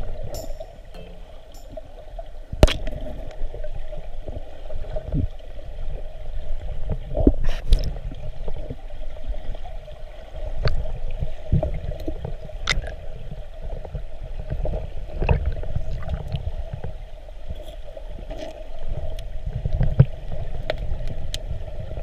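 Underwater river sound heard through a waterproof camera housing: a low, muffled rumble of moving water with a steady hum and scattered sharp clicks and knocks.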